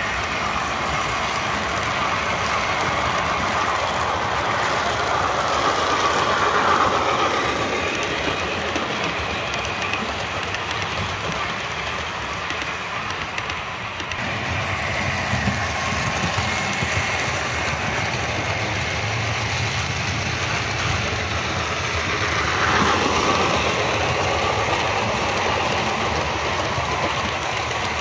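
Model railway trains running on the layout's track: a steady rumble of wheels and motors, with a whine that swells and fades as trains pass, loudest about a quarter of the way in and again near the end.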